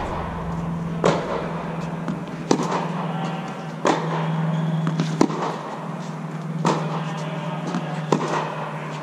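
Tennis ball struck by racket in a groundstroke rally: sharp pops about every one and a half seconds, six in all, echoing under the fabric dome, over a steady low hum.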